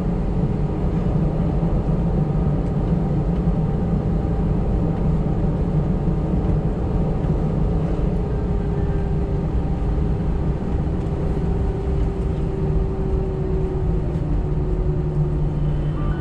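Steady jet engine and cabin noise inside an airliner taxiing after landing, with a faint hum that slowly sinks in pitch about halfway through.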